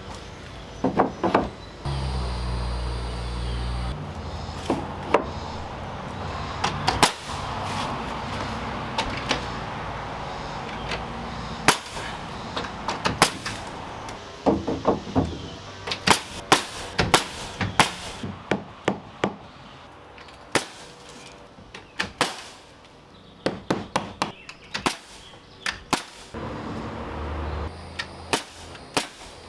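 Building work on wood: repeated sharp knocks and taps of tools striking and fastening boards, some in quick runs. A short steady machine hum comes in about two seconds in and again near the end.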